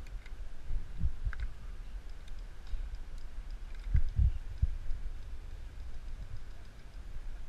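Muffled low thumps, loudest in a cluster about four seconds in, with scattered faint sharp clicks.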